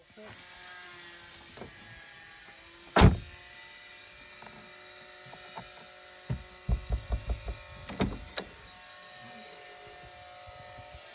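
A loud single knock about three seconds in, then a quick run of about eight rattling knocks as the campervan table held in its rear-door mounting bracket is shaken against the bracket. A faint steady hum runs underneath.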